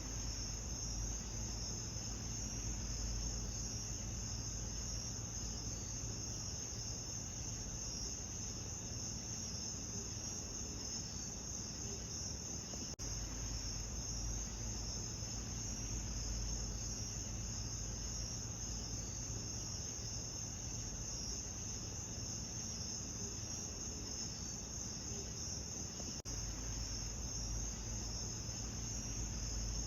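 Steady chorus of night insects, a continuous high shrill, over a low steady rumble, with brief breaks in the sound about 13 and 26 seconds in.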